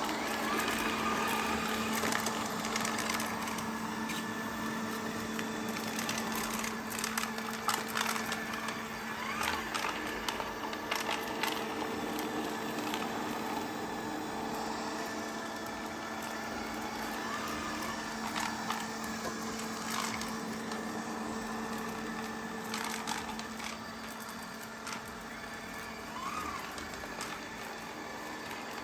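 Xiaomi Mi Robot Vacuum-Mop Essential robot vacuum running, its suction motor giving a steady hum, with scattered clicks and crackles along the way.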